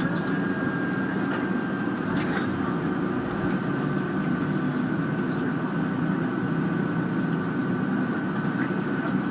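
Steady cabin noise of a Boeing 757 with its engines running, heard from inside the passenger cabin, with a thin high whine above the low rumble.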